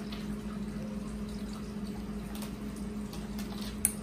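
Faint rustling and light clicks of a rubber-jacketed power cable being uncoiled and handled, with one sharper click near the end, over a steady low background hum.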